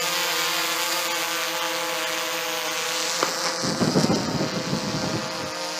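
Blade 350 QX2 quadcopter's electric motors and propellers running with a steady pitched hum. From about three and a half seconds in, a rough low rumbling noise lies over it for about two seconds.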